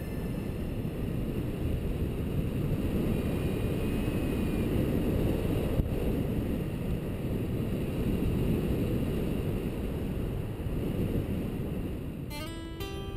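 Wind rushing over the microphone of a paragliding chase cam in flight: a steady low rush of airflow. Near the end, a plucked acoustic guitar begins.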